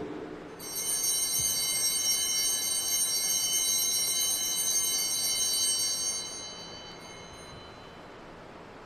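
Altar bells rung at the elevation of the host during the consecration of the Mass. A bright, high ring starts about half a second in, holds for about five seconds, then fades away.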